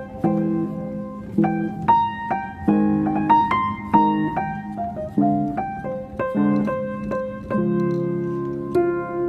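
Background piano music: single notes and chords struck one after another, each ringing on briefly.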